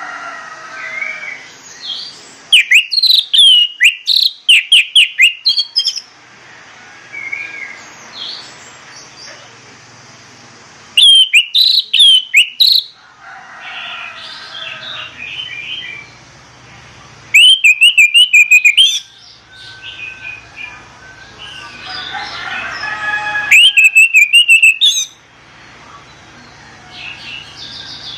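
Orange-headed thrush singing: four loud bursts of rapid, sharp whistled notes, each one and a half to three seconds long, spaced roughly six seconds apart. Quieter chirping from other birds fills the gaps.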